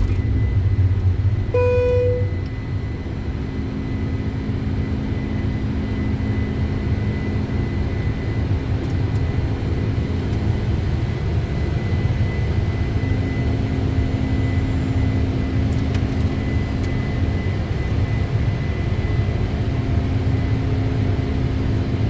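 Boeing 747-400 flight-deck noise while climbing after takeoff: a steady low rumble of airflow and engines with a faint steady high whine. A short single tone sounds once, about two seconds in.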